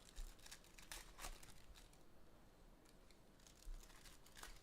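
Faint tearing and crinkling of a trading-card pack wrapper being ripped open and handled, in scattered short rustles.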